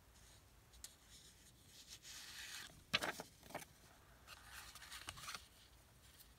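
Paper card being handled and slid over a cutting mat: soft rustling and scraping, with two sharp taps about three seconds in.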